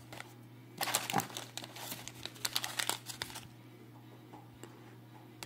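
Plastic snack packet crinkling and rustling as it is picked up and handled. The rustling starts about a second in and stops about two and a half seconds later.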